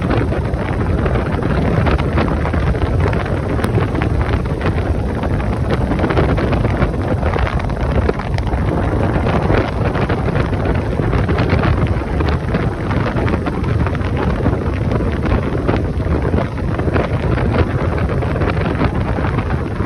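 Motorcycle engine running steadily while riding at road speed, with heavy wind buffeting the microphone.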